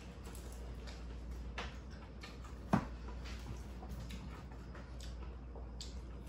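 Quiet eating sounds: soft clicks and taps of plastic forks on takeout containers and chewing, with one sharper knock nearly three seconds in, over a low steady hum.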